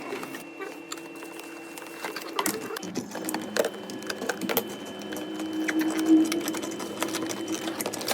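A small motor running steadily, with scattered clicks and taps.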